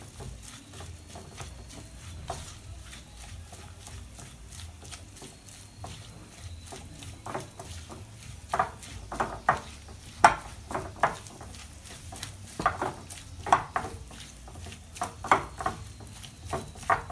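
A spatula stirring and working minced meat with spices and fried onion in a glass bowl: quiet stirring at first, then from about halfway a run of sharp taps and clicks of the utensil against the glass.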